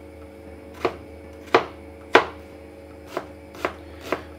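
Chef's knife chopping a diced onion on a cutting board: six sharp knocks, unevenly spaced, over a steady low hum.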